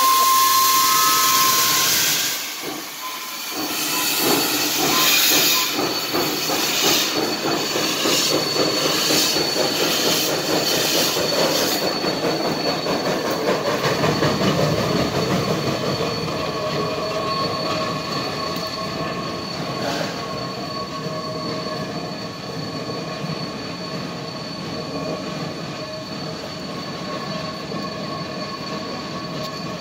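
Climax geared steam locomotive No. 9 pulling away: a loud hiss of steam from its open cylinder cocks, then a run of sharp exhaust chuffs that fade as it moves off. A steady squeal of wheels on the rail follows.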